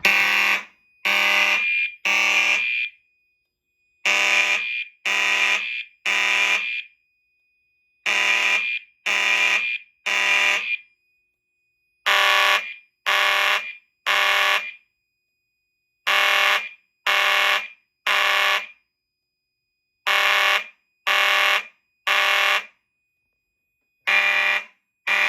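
Fire alarm horns, including a Potter SH1224R horn strobe, sounding the temporal-three (code 3) evacuation pattern after a pull station is pulled: three half-second buzzy blasts, then a pause, repeating about every four seconds. A faint steady high tone continues between the blasts.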